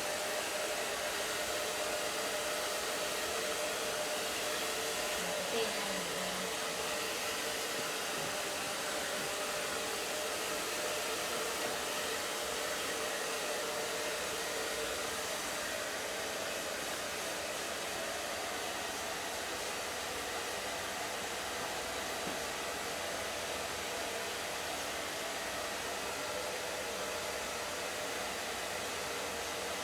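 Hair dryer blowing steadily: a constant rushing noise with a faint steady hum under it.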